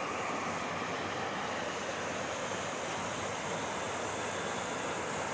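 Small mountain stream cascading over rocks: a steady rushing of water.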